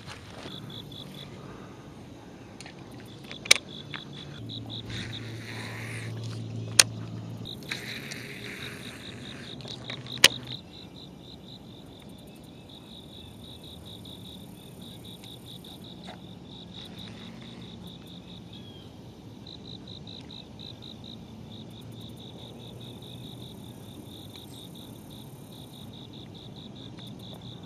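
Insects trilling steadily outdoors in a fast, high, pulsed chirp. Three sharp clicks stand out in the first ten seconds.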